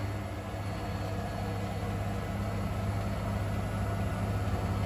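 Bosch Serie 4 front-loading washing machine with an EcoSilence Drive motor, its drum spinning fast in the final full spin cycle, heading for 1400 RPM. It makes a steady low hum.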